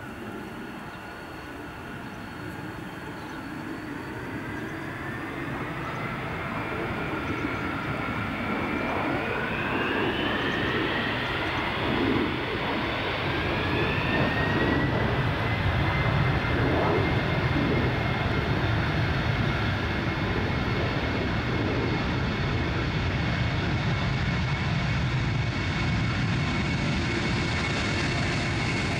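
Boeing 747-400's four turbofan engines spooling up to take-off thrust during a rolling take-off. The whine rises in pitch and the roar grows louder over the first half, then both hold steady at full power.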